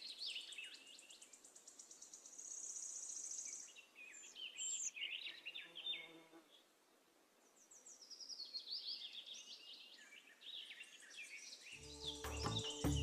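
Small birds chirping and calling in quick, high twittering phrases, with a fast, high buzzy trill about two seconds in. Near the end a louder, lower sound with steady tones comes in and stops abruptly.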